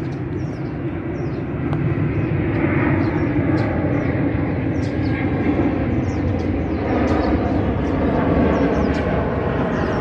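Steady loud rumble of vehicle noise, with short high bird chirps now and then above it.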